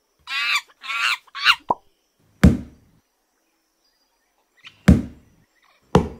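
Three heavy, booming stomps spaced a couple of seconds apart, the footsteps of an approaching T-Rex, after a few short high cries near the start.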